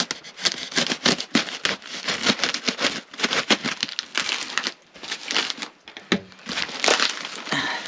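Cardboard box being cut and pulled open: packing tape slit and torn, cardboard flaps bent back, and paper inside crinkling, in a rapid, irregular run of crackles and rustles.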